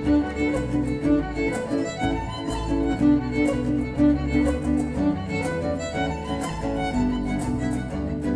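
A small acoustic band playing an instrumental passage: a violin carries the melody over bass notes and a steady percussion beat.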